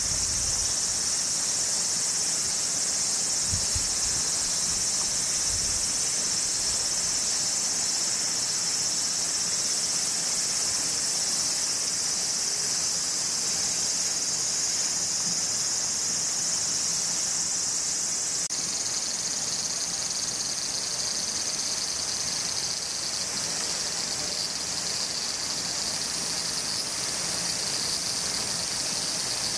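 Steady insect chorus, a continuous high-pitched shrill that shifts a little lower about two-thirds of the way through.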